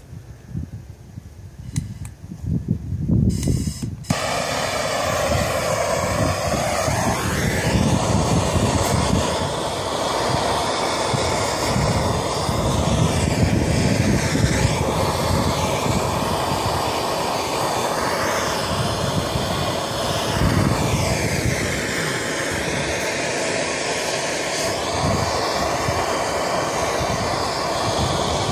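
Gas torch starting about four seconds in and then running with a steady, loud rushing noise while it preheats a cast-iron bracket for welding; its tone sweeps up and down now and then as the flame is moved. Before it lights, a few light metallic clinks.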